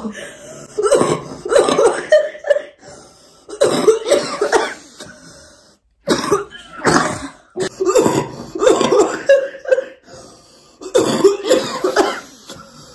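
Two women coughing and laughing in repeated fits, close to the microphone.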